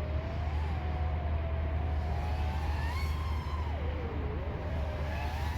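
FPV quadcopter's electric motors and propellers whining, the pitch rising and falling as the throttle changes. It climbs to its highest about three seconds in, drops sharply, then rises again near the end.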